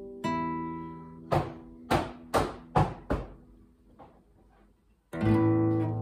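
Classical nylon-string guitar played by hand: a plucked chord rings and fades, then five sharp percussive hits follow in quick succession. After a brief near-quiet gap, a full chord with a deep bass note sounds near the end.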